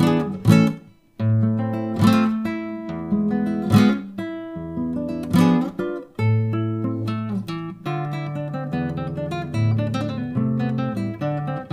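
Solo nylon-string classical guitar played fingerstyle: a tango, with bass notes under sharp, accented chords and a brief stop about a second in.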